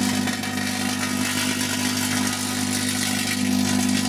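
Microwave oven running on high: a loud, steady mains hum from its magnetron transformer, with a crackling hiss from plasma arcing off scrunched aluminium foil inside.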